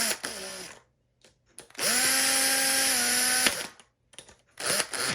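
Power drill-driver tightening the screws that hold the exhaust fan motor's housing together, running in short bursts. One run trails off just after the start, a second run of about a second and a half comes in the middle with its pitch stepping down near its end, and a short burst comes near the end.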